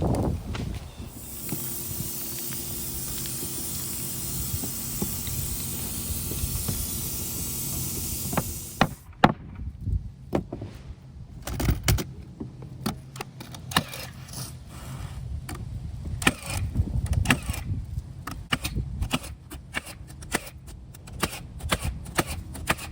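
A steady hiss that cuts off sharply about nine seconds in, followed by a run of irregular knocks and clatters.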